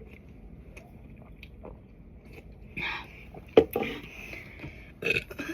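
Soft mouth and breath noises close to the microphone, with a sharp click about three and a half seconds in and a few short breathy bursts around it.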